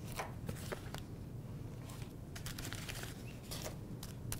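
Heavy-duty aluminum foil packets being handled and set down on a tray: scattered light crinkles and clicks over a low steady hum.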